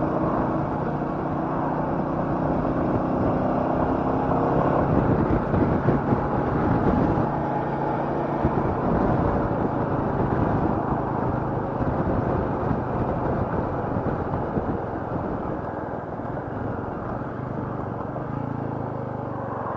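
Royal Enfield Meteor 350's single-cylinder engine running on the move, its note rising and falling a few seconds in, under steady wind and road noise.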